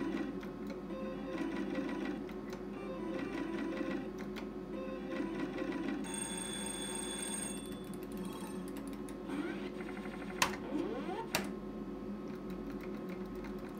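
Sizzling Hot slot machine's electronic game sounds: steady beeping and ringing tones as the reels spin, a brief high chime about six seconds in, and rising electronic sweeps near ten seconds as the card gamble comes up. Two sharp clicks of the machine's push buttons, about a second apart, are the loudest sounds.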